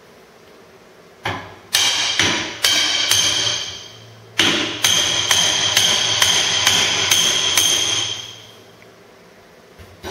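Hammer blows on a wrought-iron baluster, each strike leaving the iron ringing with a high metallic tone. About five blows come first, then after a short pause a longer, quicker run of blows.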